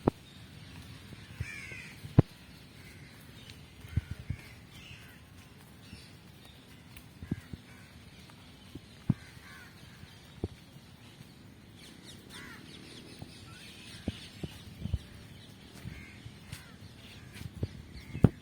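Crows cawing now and then in a park, over a steady outdoor background. Sharp clicks or knocks come every few seconds, the loudest about two seconds in.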